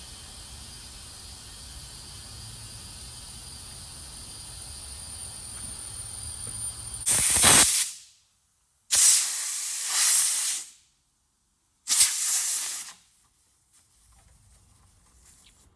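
Compressed air hissing steadily at a tire changer, slowly building, then three loud blasts of air in the second half of the clip. This fits a large 305 tire being inflated and its bead seated on the wheel.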